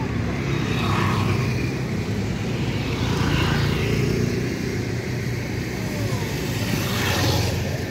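Steady motor-vehicle engine rumble and road noise, with a louder whoosh about seven seconds in.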